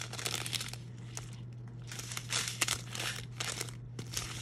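Small clear plastic bags of square diamond-painting drills being handled, crinkling in irregular bursts with little clicks as the drills shift inside.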